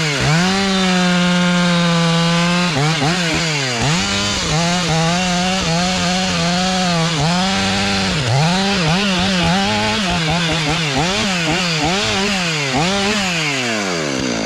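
Stihl MS 500i chainsaw, an 80 cc fuel-injected two-stroke, revving up to full throttle and cutting wood. Its engine pitch holds high at first, then dips and recovers many times under the load of the cut, and it drops back to a low speed near the end.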